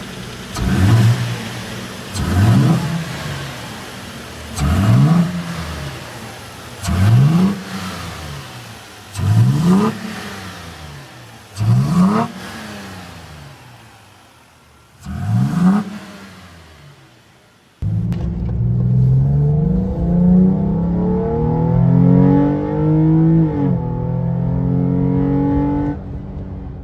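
Nissan Frontier's 3.8-litre V6 breathing through an S&B cold air intake: seven quick free revs, each rising and falling back to idle. About eighteen seconds in, the sound changes abruptly to the engine pulling steadily, its pitch climbing slowly, then dropping sharply once and carrying on.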